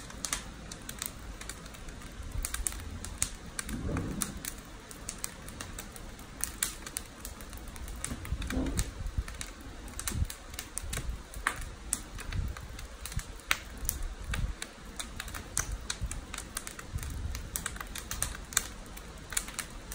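Wood fire crackling in the fireboxes of a wood-fired climbing kiln (noborigama) during a firing: irregular sharp snaps and pops over a low rumble.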